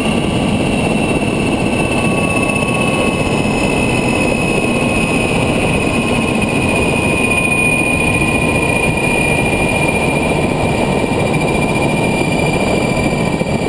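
Agusta helicopter's turbine engines and rotor running on the ground, a steady loud rush with a high turbine whine that slowly falls in pitch.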